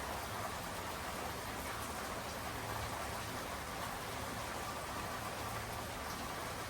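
Steady rainfall, an even hiss of rain with drops landing on surfaces.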